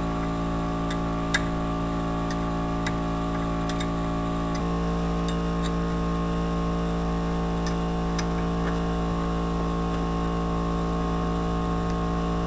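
Background music of held keyboard chords that change to a new chord about four and a half seconds in, with scattered faint metallic clicks from an open-end wrench working on the brake caliper bolts.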